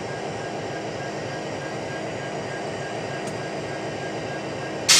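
Union Pacific 4333's diesel locomotive engine running with a steady drone while the train stands. Just before the end a sudden loud hiss bursts out and starts to die away.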